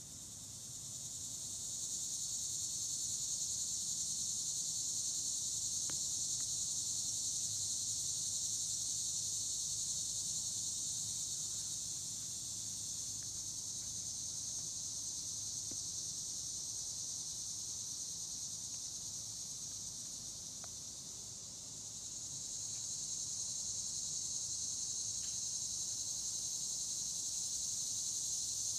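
Chorus of insects making a steady high-pitched buzz. It swells up over the first two seconds, eases off about twenty seconds in, then swells again.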